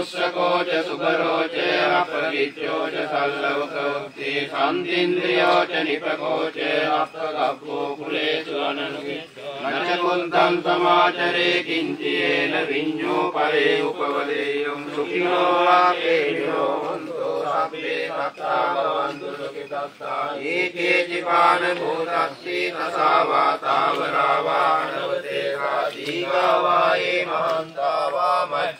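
Several Theravada Buddhist monks chanting Pali pirith verses together, a continuous recitation without a break.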